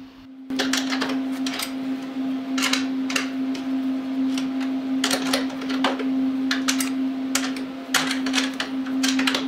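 Irregular sharp clicks and clacks of hand work on parts, a few close together and then short pauses, over a steady low hum.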